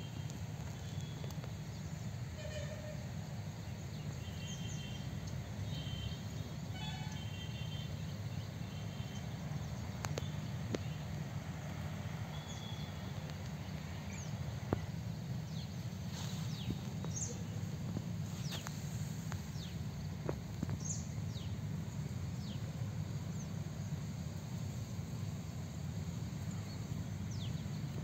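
Open-field ambience: a steady low hum with short high bird chirps in the first half and quick falling whistled calls later on.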